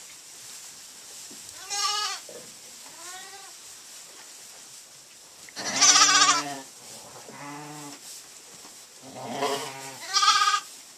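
Sheep bleating in a lambing pen: about six separate calls, some high and thin like newborn lambs, others much deeper like ewes answering, the loudest about six seconds in.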